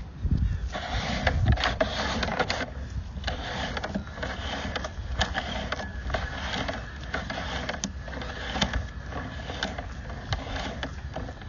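Sewer inspection camera's push cable being worked back through the drain line: irregular clicks and scraping over a low rumble, busiest in the first couple of seconds.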